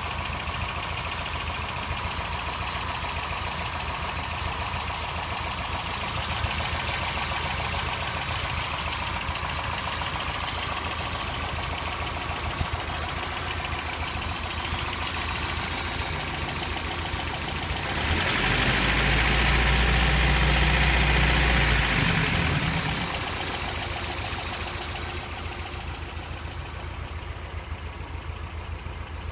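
1989 Toyota pickup's 22RE 2.4-litre four-cylinder engine idling with a fast, even ticking. About two-thirds of the way through it is revved up for a few seconds, then drops back to idle. The owner suspects a noisy valve, or maybe a rod knock.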